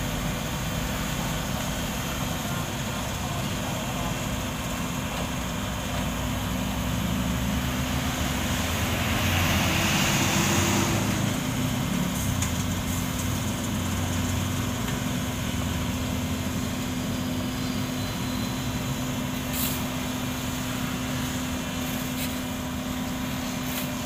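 Sumitomo asphalt paver's diesel engine running steadily with a constant hum, with a louder rushing swell for about two seconds near the middle and a few sharp scrapes or knocks near the end.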